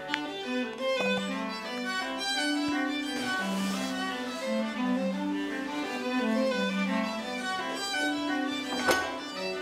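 Background music played on bowed strings, violin and cello, in sustained notes. A single sharp knock near the end stands out above the music.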